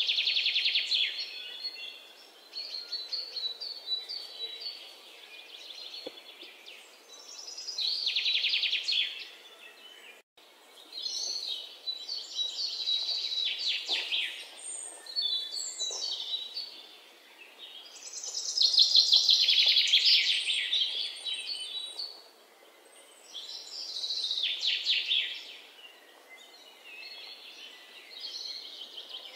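Small songbirds chirping and trilling in repeated phrases a second or two long, with short pauses between them; the longest and loudest phrase comes about two-thirds of the way through.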